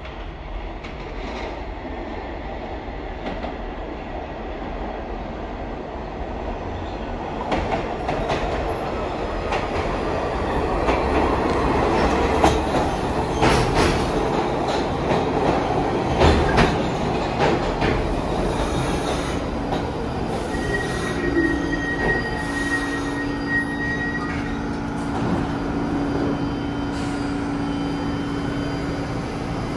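New York City subway train pulling into an underground station: its rumble grows louder over the first dozen seconds, then the wheels clack over rail joints as the cars pass. From about twenty seconds in, a high brake squeal and a steady lower hum come in as it slows to a stop.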